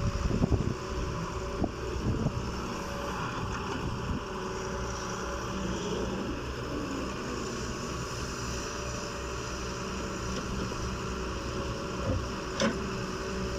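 Excavator's diesel engine running steadily under load, with a few knocks in the first couple of seconds and a single sharp clank near the end.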